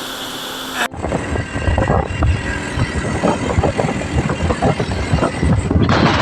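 A steady water-like rush that cuts off abruptly about a second in, followed by loud, irregular wind buffeting on the microphone and rumble from a motorbike being ridden along.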